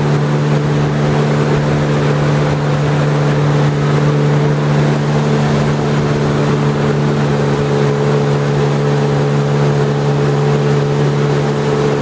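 Jet ski engine running steadily, an even hum that holds one pitch throughout, with a hiss of water and air over it.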